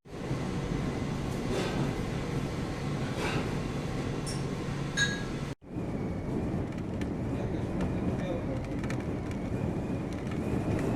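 Blizzard wind blowing hard and steadily at over 60 knots, a dense rushing noise broken by a sudden cut about halfway through.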